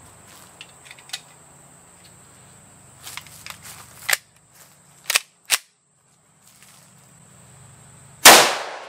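A few sharp metallic clicks from handling an FK Brno pistol, then one very loud pistol shot about eight seconds in, a 7.5 FK round fired from the pistol's swapped-in 7.5 FK barrel, with a short fading echo.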